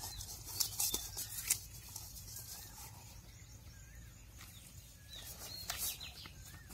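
A hand rubbing turmeric powder into raw whole fish in an aluminium pan makes wet rubbing and handling noises, loudest about a second in and again near six seconds. A bird chirps briefly every second or two.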